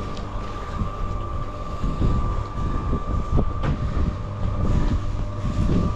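A steady low rumble with a constant high whine and a few knocks: machinery or a vehicle running.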